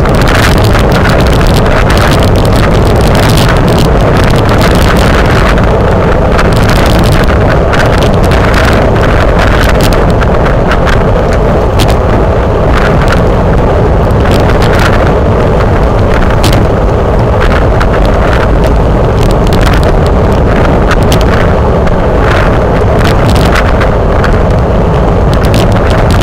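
Loud, steady wind noise buffeting the microphone of a camera on a road bike ridden at race speed, with frequent brief gusts.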